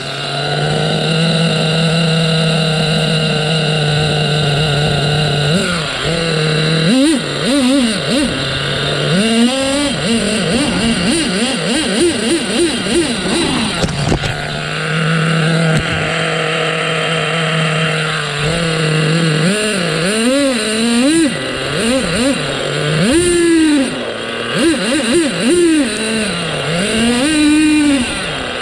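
Onboard sound of an HPI Trophy Buggy's 3.5 cc nitro engine at high revs. Twice it holds a steady high pitch for several seconds. In between it revs up and down in quick rises and falls as the throttle is blipped, fastest about a third of the way in.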